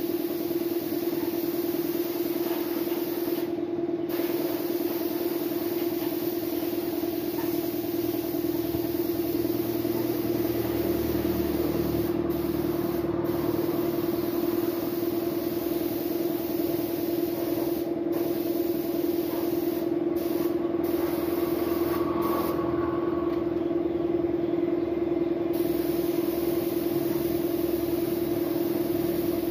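Compressed-air spray gun hissing as it sprays paint, cutting out briefly several times as the trigger is let go, over a steady pitched machine hum.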